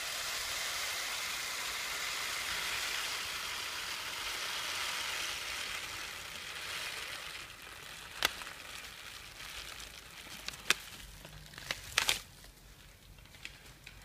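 Desiccant drying beads pouring from a paper bag into the dryer housing of an EAS air suspension compressor, a steady granular hiss that tapers off after about seven seconds. A few sharp clicks follow in the second half.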